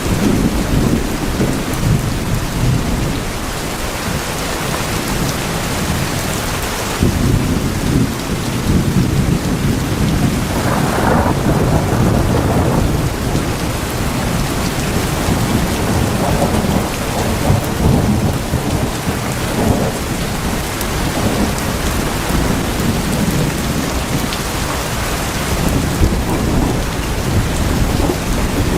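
Heavy rain drumming steadily on tin roofs, with low rolling thunder rumbling beneath it.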